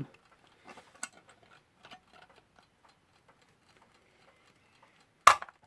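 Westclox Lark alarm clock movement ticking faintly, mixed with small handling clicks, and one sharp click a little after five seconds in.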